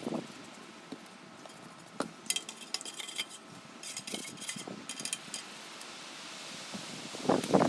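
Metal tools clinking and scraping against a Volkswagen air-cooled engine as caked-on grease and muck are cleaned off. A fast rattling scrape comes about two and a half seconds in and again near five seconds, with louder knocks and scrapes near the end.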